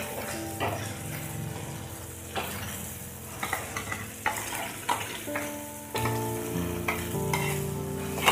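Ground masala sizzling in hot oil in a clay pot while a metal ladle stirs and scrapes through it. Short scrapes and knocks of the ladle on the pot come every second or so.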